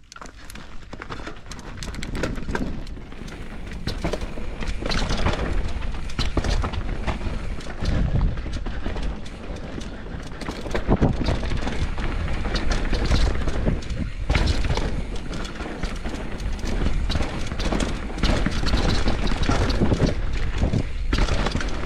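Canyon Torque mountain bike descending a rough dirt trail at speed: wind rumbling over the microphone, tyres running over dirt and stones, and the chain and frame rattling and clicking over bumps. The noise builds over the first couple of seconds as the bike gets going.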